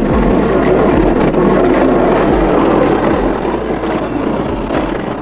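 A 2019 Ford F-250 plowing snow, heard from inside the cab: the truck's engine running and its plow blade pushing and scraping snow as a steady noise. A faint click sounds about once a second.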